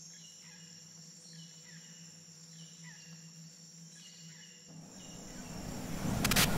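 Jungle ambience sound effect: a steady high insect trill, with a short chirping bird call repeating every second or so. From about five seconds in, a rising swell of noise builds steadily in loudness.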